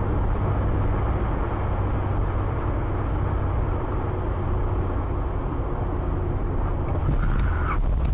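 Steady engine and road noise of a moving car, with a low rumble. A few brief clicks come near the end.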